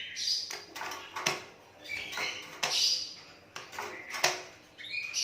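Asian pied starling calling in a series of short, harsh bursts, with sharp clicks among them.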